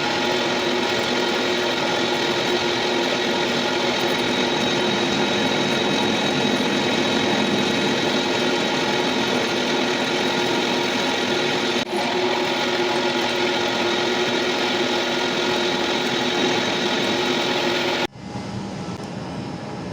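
Metal lathe running steadily while machining a belt pulley, a dense mechanical drone with steady whining tones. About eighteen seconds in it cuts off abruptly to a quieter, different machine sound.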